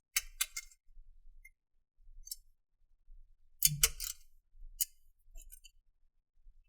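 Sharp clicks and light taps as a PS4 heatsink X-clamp is fitted onto the board, with a heavier knock about four seconds in.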